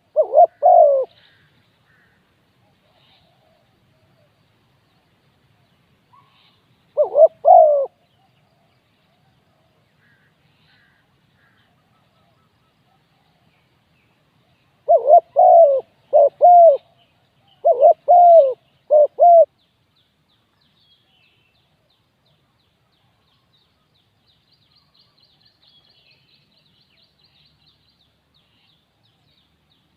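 Spotted dove cooing in short phrases: one just at the start, another about seven seconds in, and a longer run of coos about halfway through. Faint high chirps from small birds come toward the end.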